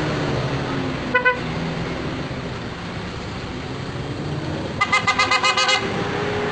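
Car horns tooting over steady engine and road noise from passing vehicles: a quick double toot about a second in, then a rapid run of about ten short toots lasting about a second near the end.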